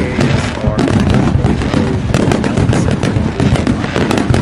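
Loud, continuous crackling and popping, a dense run of sharp cracks over a low rumble.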